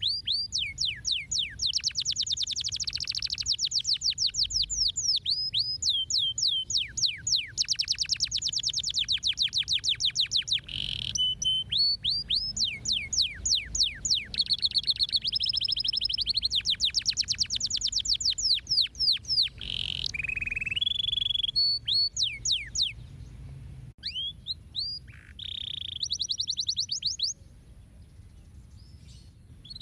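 Domestic canary singing: long rapid trills of repeated downward-sweeping whistled notes, changing from one trill to the next, with short breaks. The song pauses a couple of seconds before the end.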